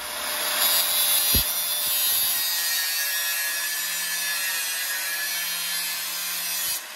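Angle grinder with its disc pressed against rusty sheet steel, throwing sparks: a steady, harsh grinding that cuts off abruptly near the end.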